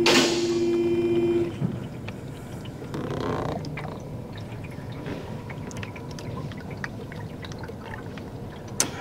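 Thin engine cleaner pouring from a plastic jug through a funnel into an engine's oil filler: a steady trickle with small glugs and drips. A steady hum stops about a second and a half in.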